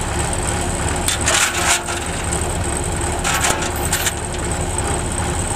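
Kubota DC105X combine harvester running steadily while cutting rice, its diesel engine and threshing drive humming, with two short rasping rushes of noise, about a second in and again about three seconds in.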